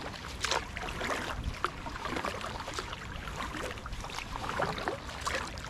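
Double-bladed kayak paddle dipping and pulling through calm water in steady strokes, with irregular splashes and drips from the blades over a low rumble.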